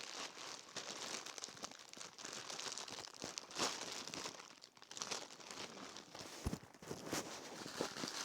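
Plastic packaging of a fidget-toy mystery bag crinkling and tearing as it is opened by hand, with one sharp knock about two-thirds of the way through.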